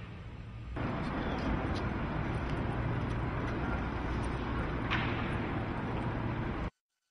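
Steady noisy room ambience with a low hum underneath in a ship's large atrium. It jumps louder about a second in and cuts off abruptly near the end.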